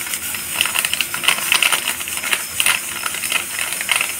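Chopped vegetables sizzling in a little oil in a frying pan: a steady hiss with many irregular crackles.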